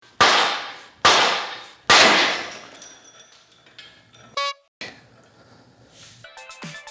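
Three loud sharp hits about a second apart, each fading out slowly in a long noisy tail, then a brief buzzy tone, with electronic music starting near the end: intro sound effects.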